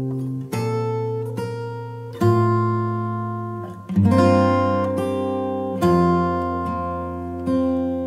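Background music: acoustic guitar chords, a new one struck about every one and a half to two seconds and left to ring out.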